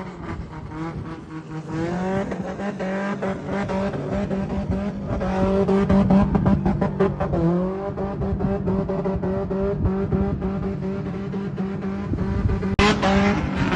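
Datsun car's engine revving hard under stunt driving, its pitch climbing and falling, with tyres squealing. The sound changes abruptly near the end.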